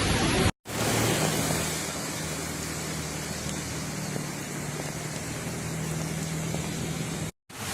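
Steady rushing noise of a heavy rainstorm, with a low steady hum underneath.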